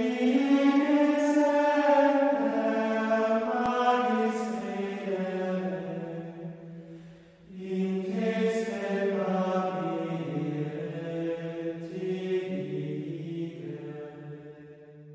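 Unaccompanied sung plainchant: one voice line holding long, slowly moving notes in two phrases with a brief breath between them. The second phrase settles lower and fades out near the end.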